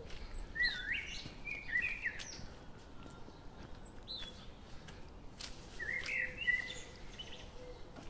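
Small birds chirping in two short bouts of quick, sliding notes, the first about half a second in and the second around six seconds in, over a quiet outdoor background.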